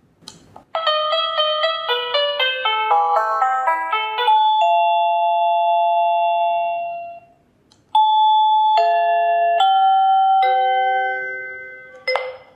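Electronic doorbell chime playing a melody: a quick run of bright bell-like notes ending on a held note that rings out, then after a short gap four slower, evenly spaced notes that decay away. A short click comes near the end.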